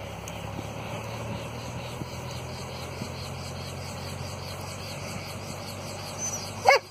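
Cicaré light helicopter's engine running steadily on the ground, its rotor turning slowly, a steady low hum. A short loud call, like a person's voice, cuts in near the end.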